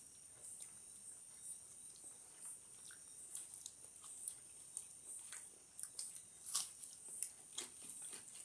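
Close-miked eating sounds: wet chewing, lip smacks and soft mouth clicks from people eating chicken biryani with their hands, coming irregularly and growing busier in the second half. A faint steady high-pitched whine runs underneath.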